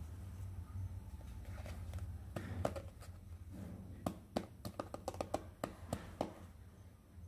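Hands handling small toy pieces: a run of light clicks and taps, most of them between about two and six seconds in, over a low steady hum.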